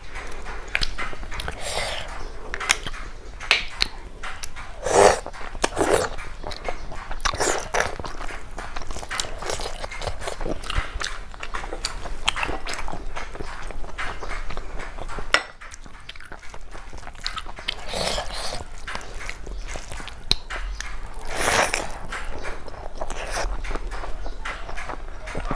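Close-miked eating sounds: chewing and biting on snail curry and rice, with scattered small clicks and several louder short noisy mouth sounds.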